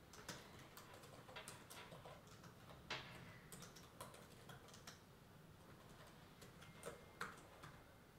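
Faint typing on a laptop keyboard: irregular key clicks, with a few louder taps about three seconds in and again near the end.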